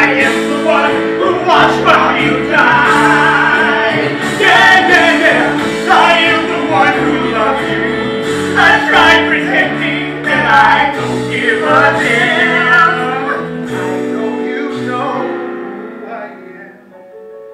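Stage musical number: male and female voices singing loudly over band accompaniment with held chords underneath. The music fades out over the last few seconds.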